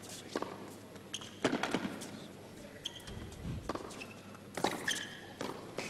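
Tennis rally on an indoor hard court: several sharp pops of racket strikes and ball bounces at irregular intervals, with a few short shoe squeaks between them.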